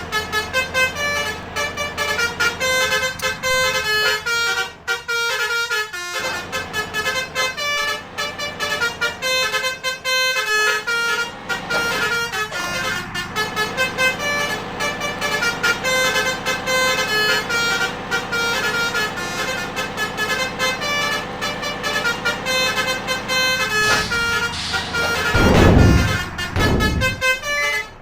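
Telolet-style basuri multi-tone bus horns playing short melodic tunes over and over. Near the end, a loud rushing swell rises and falls, the loudest moment.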